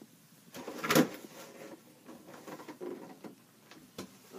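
Rummaging among stored things: objects knocked and shifted about with rustling, one loud knock about a second in and a sharp click near the end.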